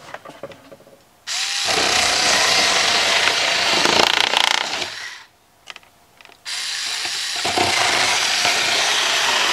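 Blue Ridge rechargeable rotary cutter running as its blade cuts through clear plastic clamshell packaging, in two long stretches of about four seconds each with a pause of about a second between them. Small clicks of the plastic being handled come before the first cut.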